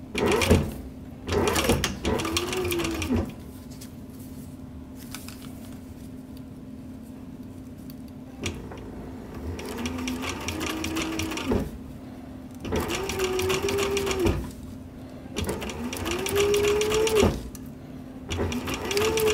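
Sewing machine stitching a leather zipper cover onto a zipper in about six short runs with pauses between. Each run rises in pitch as the motor speeds up, then holds steady until it stops.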